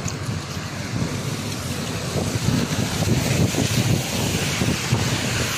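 Wind buffeting the phone's microphone over a steady wash of street traffic.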